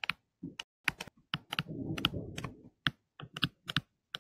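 Stylus pen tapping and scraping on a tablet screen as words are handwritten: a run of quick, irregular clicks, with a short stretch of scratchy rubbing about a second and a half in.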